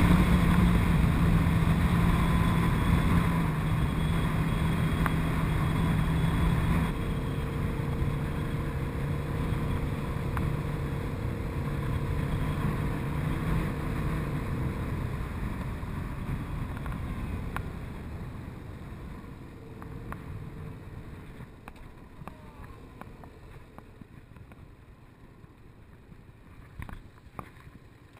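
Yamaha MT-07's parallel-twin engine with wind rush while riding at speed. The engine note drops to a lower pitch about a quarter of the way in, then fades away as the bike slows to a stop.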